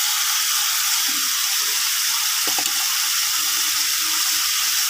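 Tangra fish curry simmering in a wok, a steady bubbling and sizzling hiss as the gravy boils.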